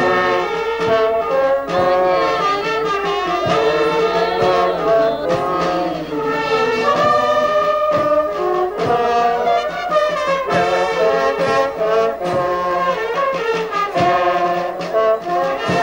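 Brass band music: trumpets and trombones playing a melody, with sharp percussive hits under it.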